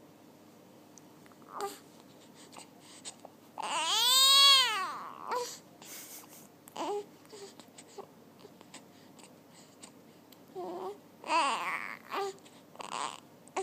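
Newborn baby cooing and making small vocal noises. About four seconds in comes one loud, long call that rises and falls in pitch, and a second drawn-out coo follows around eleven seconds, with short sounds scattered in between.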